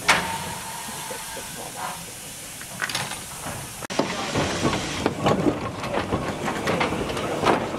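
Small 0-4-0 saddle-tank steam locomotive: a sharp burst of steam hiss that dies away over about a second, another short hiss, then the engine working slowly past close by, its exhaust beating about three times a second.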